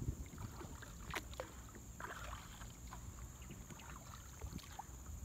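Kayak paddle dipping and splashing in the river, one clear swishing stroke about two seconds in, with a few small knocks and drips over a low steady rumble.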